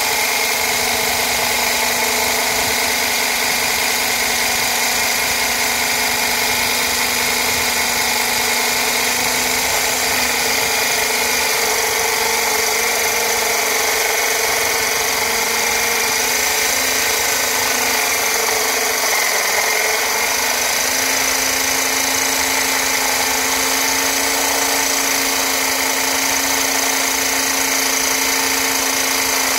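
Electric core drill boring dry through a granite countertop: the motor runs with a steady whine over the grinding of the bit, its pitch stepping up slightly about two-thirds of the way through.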